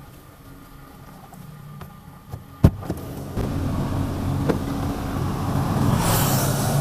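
A sharp click, as of a car door unlatching, about two and a half seconds in. Then the open air comes in: a steady hum of road traffic and engines, with wind on the microphone near the end.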